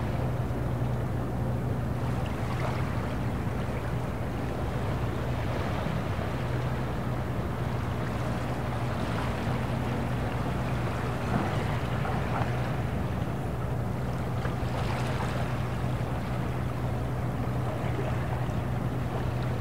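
Harbour ambience: a steady low engine drone from a ship or boat on the water, over a constant wash of water, with a few brief splashes midway.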